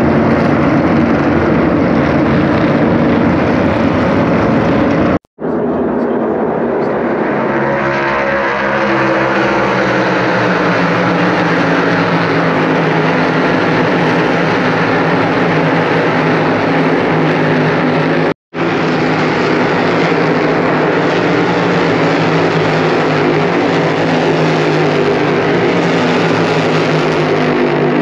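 A field of NASCAR Cup Series stock cars lapping the oval, their pushrod V8 engines running loud. Their pitch falls as cars sweep past, most clearly about eight to ten seconds in. The sound cuts out briefly twice.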